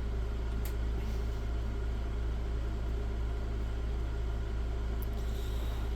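Steady low-pitched background hum with two faint short clicks, one under a second in and one about five seconds in.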